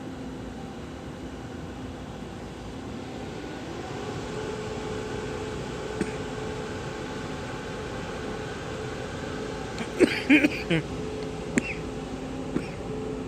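E1000 push-pull Tze-Chiang express pulling out of the station: a steady electric hum with a few held tones, growing a little louder about four seconds in. A quick cluster of short, loud sounds comes about ten seconds in, with a few single ticks around it.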